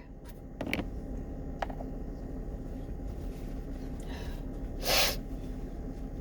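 A person's nose sniffing once, short and sharp, about five seconds in, during a sneezing fit that the person puts down to fall allergies. A couple of faint clicks come before it.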